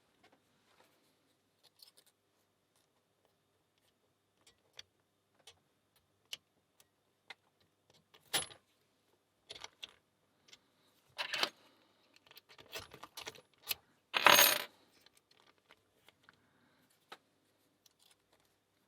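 Lock picks working inside a small padlock: scattered light metallic clicks and ticks, with a few louder metal clacks and rattles about eight, eleven and fourteen seconds in.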